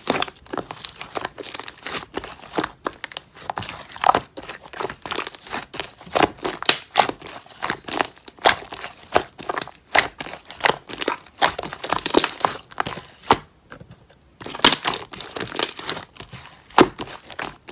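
Slime being squeezed and worked by hand: rapid, dense crackling and popping clicks, with a short pause about three-quarters of the way through.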